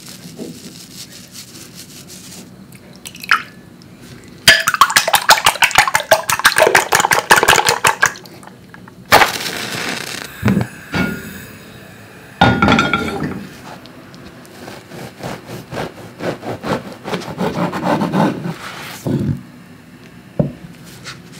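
Eggs being beaten in a glass bowl: rapid, clinking strokes in two spells. About nine seconds in, a match is struck and flares.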